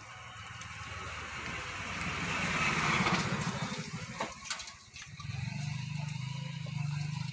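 A motor vehicle passing on the road, its engine and tyre noise swelling to a peak about three seconds in and then fading, with a couple of light knocks. From about five and a half seconds an engine runs steadily with a low, even hum.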